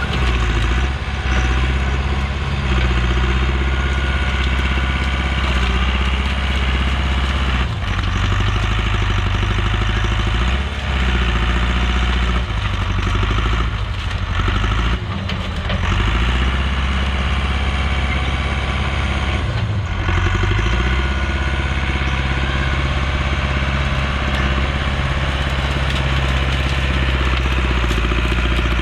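Engine of a heavy land-clearing machine running steadily under work. It dips briefly a few times, with some sharp knocks and clatter.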